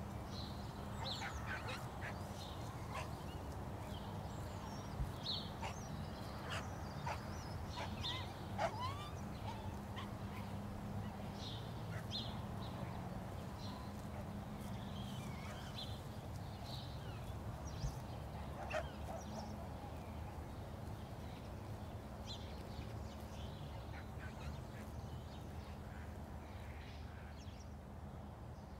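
Outdoor field-recording ambience: scattered short bird calls, some of them duck-like, over a steady low hum and rumble. The whole texture fades down slowly near the end.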